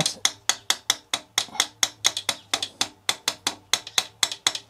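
A ball-peen hammer tapping the new steel rocker shaft into the Yamaha Virago 1100's aluminium cylinder head. The taps are light, rapid and even, about five a second, as the shaft is driven in a little at a time.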